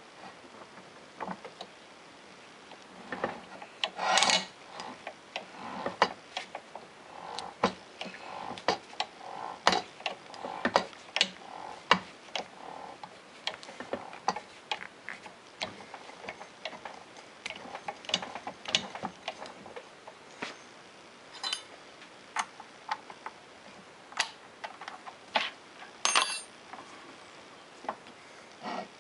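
Thread tap in a drill press chuck being turned by hand, cutting threads into a metal manifold block: irregular clicks and ticks as the press is worked, with a louder rasping burst about four seconds in and another near the end.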